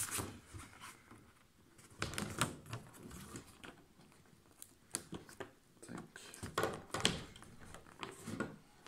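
Hand assembly of a garden windmill: irregular small plastic clicks and taps as a petal's rod end is pushed into the hub, with rustling of the fabric petals.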